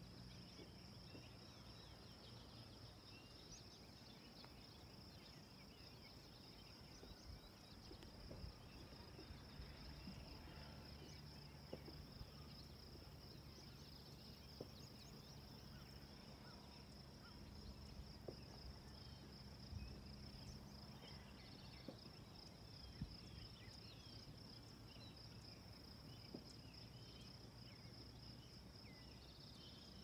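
Faint summer meadow ambience: a steady high-pitched insect chorus, with scattered faint bird chirps.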